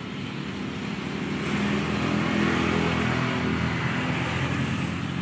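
A motor vehicle's engine running close by, growing louder about a second in and easing off toward the end, as if passing.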